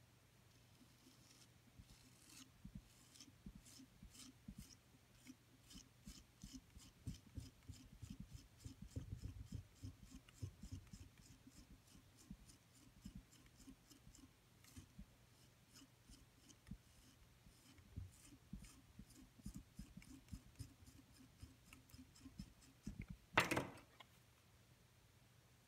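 Faint, repeated scratching strokes, about three a second, of fingers working and smoothing wet clay coils on a coil-built pot, with a few soft thuds of hands pressing the clay. One sharper knock near the end.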